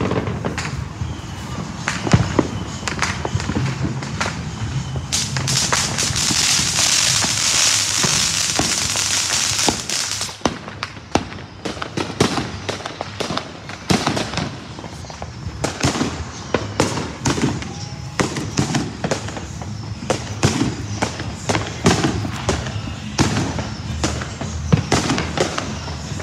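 Fireworks going off in a rapid, irregular string of sharp bangs and pops. From about five seconds in, a dense hissing crackle lasts about five seconds.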